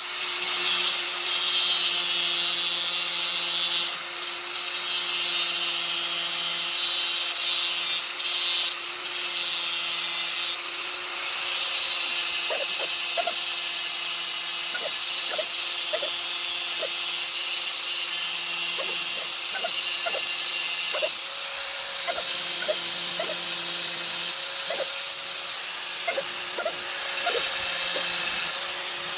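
A handheld power tool running steadily with a hissing whir, likely working the roller chain being shortened for the steering repair. A few light clicks sound in the second half.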